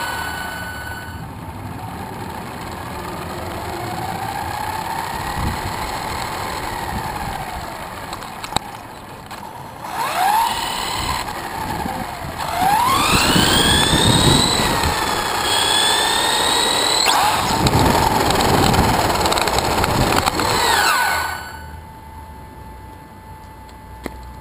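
Brushless electric drive of an Axial Exo RC buggy (Tekin RX8 speed controller, 4600 four-pole motor on a 3S battery) whining as it drives over pavement, the pitch sliding up and down with the throttle over tyre rumble. The whine is loudest and highest just past halfway, then cuts off suddenly a few seconds before the end, leaving a quieter steady hum.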